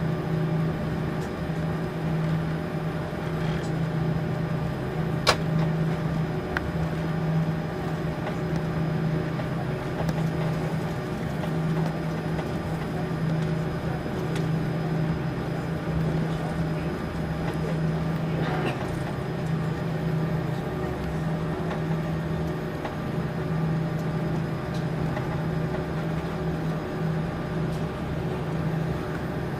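Steady drone inside the cabin of an Airbus A340-300 taxiing, its CFM56 engines running at low taxi power with a constant low hum. A single sharp click comes about five seconds in.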